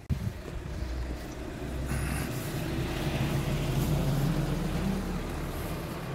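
Steady low engine hum that swells a little toward the middle and eases again near the end, over outdoor background noise.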